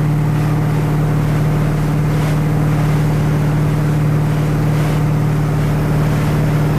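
Lyman motorboat's engine running steadily underway at cruising speed, a constant low drone, with the rush of water and wind over it.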